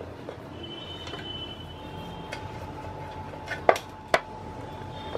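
Quiet room noise with a faint steady hum, broken by two sharp taps about half a second apart, two-thirds of the way through.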